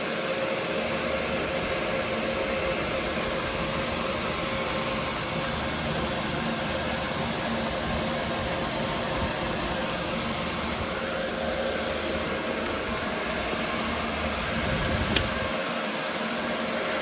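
Cooling fans of a running GPU mining rig and its server power supplies, a steady rushing hum with a faint whine. A single sharp click about fifteen seconds in.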